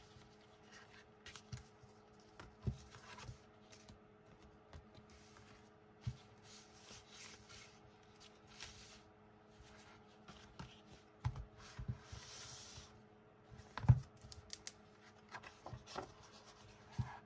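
Paper and cardboard being handled: album inserts, photocards and postcards slid out and set down, and a hardcover photobook opened, with scattered light taps and rustles, a brief sliding rustle and one louder knock in the second half.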